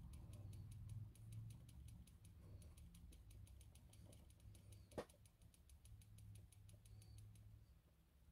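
Very faint, quick and even dabbing of a damp makeup sponge on skin, patting concealer in under the eyes. It stops near the end. There is one sharper click about five seconds in, over a low steady hum.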